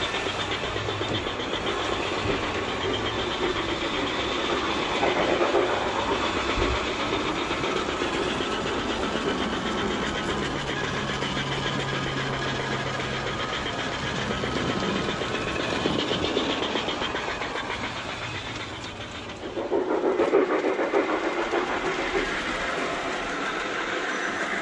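G-scale model steam locomotives running on track, their wheels rolling on the rails while their onboard sound units play steam chuffing and hiss. The sound dips briefly about 19 seconds in, then comes back louder.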